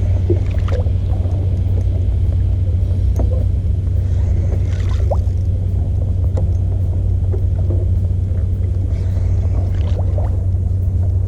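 Small 2-horsepower outboard motor running steadily: a constant low drone with faint small ticks and splashes over it.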